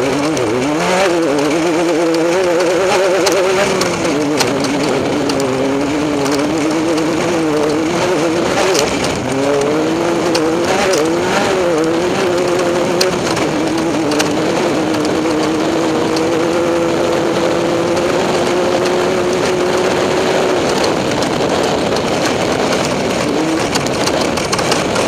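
Off-road race vehicle's engine running hard, its revs rising and falling repeatedly, then holding steady for several seconds before dropping near the end, with a few sharp knocks partway through.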